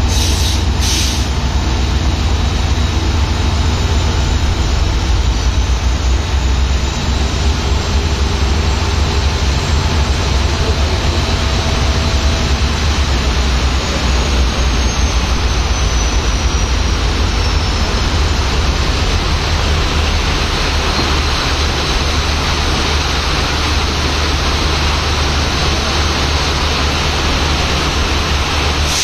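Heavy rain falling steadily, with the low drone of a WDP-4 locomotive's EMD two-stroke diesel engine and the rolling of its coaches as the train pulls out.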